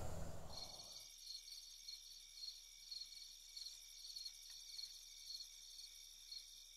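Crickets chirping faintly in a steady pulsing rhythm, about two pulses a second. A low rumble fades out during the first second.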